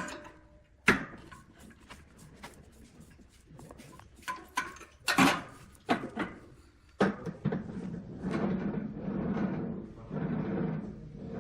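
A series of sharp wooden knocks and clatters, as of workpieces and tools being handled on a workshop bench, followed by a steadier, rougher sound in the last few seconds.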